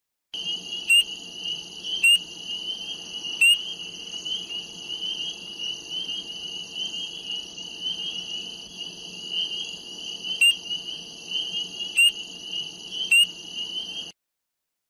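Frog sound effect: six short, sharp frog calls, three in the first few seconds and three more near the end, over a steady high-pitched night chorus that cuts off suddenly near the end.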